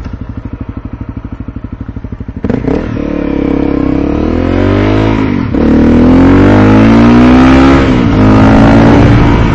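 Motorcycle engine idling with an even pulse, then pulling away about two seconds in and accelerating, its pitch climbing and dropping twice at gear shifts before settling at a steady cruise.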